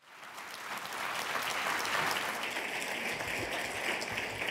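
A large audience applauding. The clapping swells over the first second, then holds steady.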